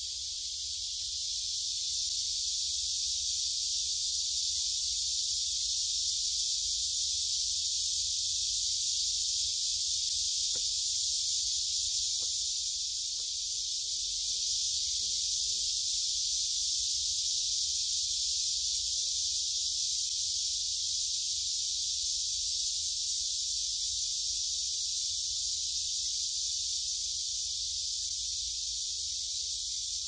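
Chorus of many cicadas singing together in summer trees: a dense, steady, high-pitched hiss that runs on without a break.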